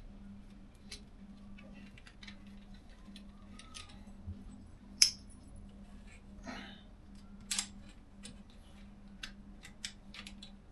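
Scattered small clicks and metallic taps of hand tools and scooter parts being handled during an installation. The sharpest click comes about five seconds in and another about two and a half seconds later, over a faint steady hum.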